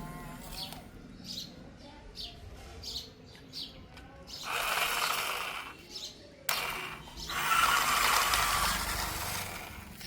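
A small mechanism grinding and ratcheting in two stretches, a short one about four seconds in and a longer one starting abruptly at six and a half seconds. Birds chirp briefly before it.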